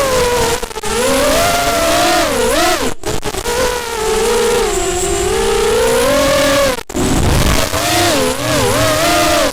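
Brushless motors and propellers of a Lisam LS210 racing quadcopter (Cobra 2204 2300KV motors, 5-inch bullnose props) whining in flight, the pitch rising and falling with throttle. The sound cuts out for an instant twice.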